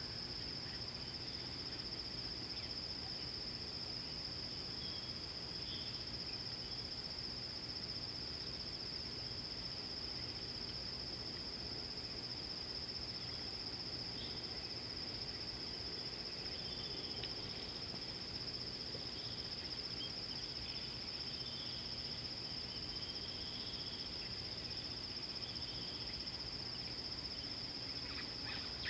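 Insect chorus keeping up one steady high-pitched drone, with a few faint bird chirps now and then.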